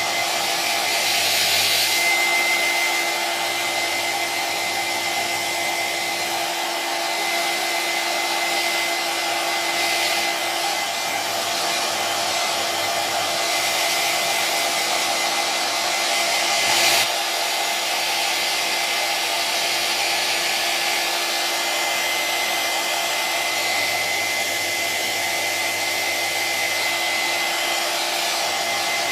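Electric hair dryer running continuously: a steady blowing whoosh with a faint high whine from the motor, swelling slightly now and then.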